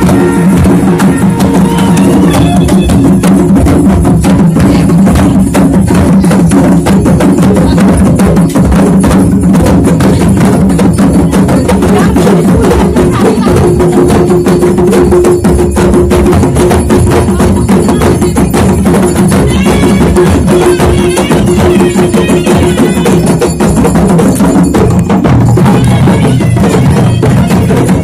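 Traditional Himachali procession music, played very loud: fast, continuous drumming with held notes from the band, one higher note sustained through the middle.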